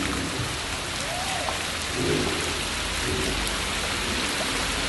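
Heavy rain falling steadily onto a flooded street and pavement, an even, unbroken hiss.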